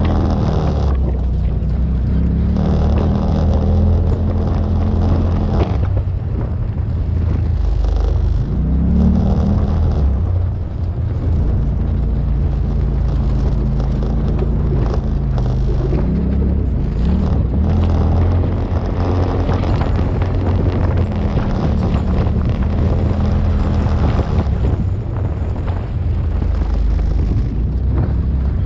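Off-road vehicle engine running as it drives a sandy trail, its pitch rising and falling with the throttle, over a steady rush of wind and tyre noise.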